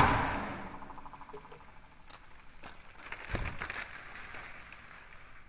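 The echoing tail of a spring-and-air-pressure party popper's bang, dying away over about the first second, then a short rustle with a soft thump about three seconds in.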